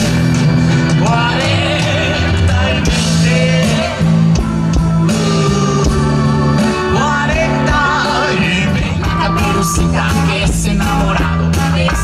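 Live rock band playing: electric guitars and drums, with singing.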